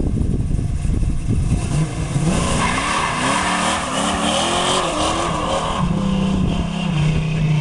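Second-generation Chevrolet Camaro SS doing a burnout as it passes. The engine revs up, rising in pitch gear after gear, while the spinning rear tyres squeal and skid for a few seconds. The tyre noise then stops and the engine note holds steady as the car pulls away.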